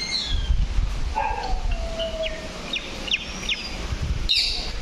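Birds calling: quick high chirps and short downward-sliding notes, with a longer whistle gliding down about a second in, over a low rumble.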